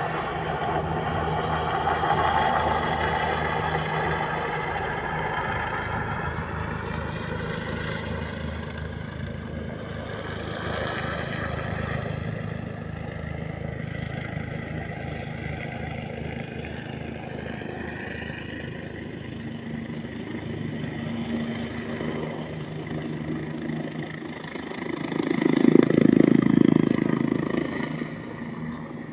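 Helicopter flying overhead: a steady droning hum of rotor and engine with several even tones, their pitch slowly falling over the first dozen seconds. Near the end a louder low rumble swells and fades over about two seconds.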